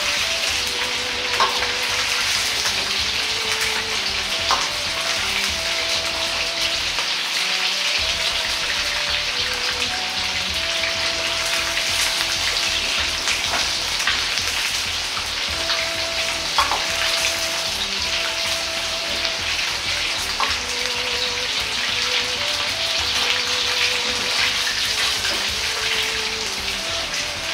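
Hot oil sizzling steadily in a wok as chicken thigh pieces and eggplant are deep-fried a second time at about 180 °C, a ladle stirring through them with a few sharp clinks against the wok.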